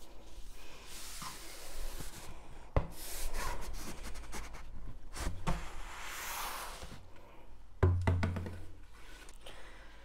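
A rolled diamond-painting canvas sliding and rustling out of a cardboard mailing tube, with a few sharp knocks of the tube and roll against a wooden table and a dull thump about eight seconds in.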